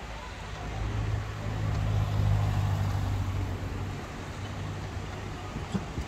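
A motor vehicle's engine passing by with a low, steady drone that grows, is loudest about two seconds in, and fades away by about four seconds, over general street noise.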